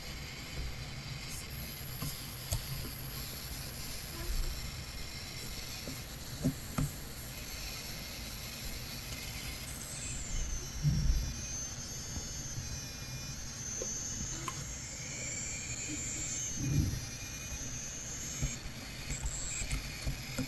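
Coil whine from the chokes of an Asus ROG Zephyrus M16 2023 gaming laptop under load: a thin, high-pitched whine whose pitch wavers and shifts up and down partway through. A few dull low bumps come over it.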